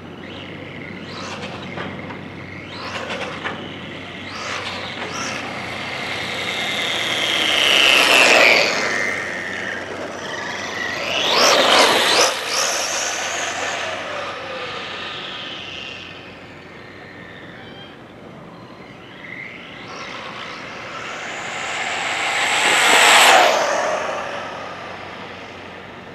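Brushless Traxxas Slash 4x4 RC truck with a Castle 1415 motor making fast pass-bys: a high electric motor whine with tyre noise that swells and drops in pitch as it goes by. There are three loud passes: about a third of the way in, near the middle and near the end, with fainter runs before them.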